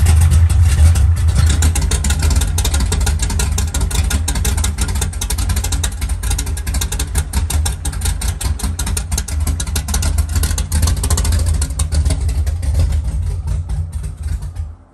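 Car engine idling loudly through opened electric exhaust cutouts: an uncorked exhaust with a rapid, rough stream of pulses. It cuts off abruptly near the end.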